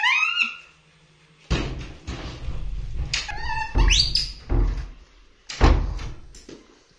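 Young macaque giving short, high-pitched rising squeals, one at the start and a few more about three to four seconds in, among several dull thuds and knocks.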